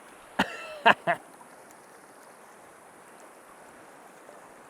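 Steady rush of river water, and about half a second in a brief, nasal quack-like call of three quick loud notes.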